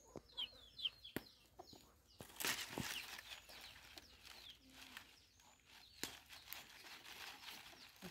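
Live chickens calling faintly in the background: a run of short, high, falling peeps in the first second and a few more about five seconds in. In between come a few sharp knocks and dry rustles as a knife cuts a plucked chicken on a bed of dry banana leaves.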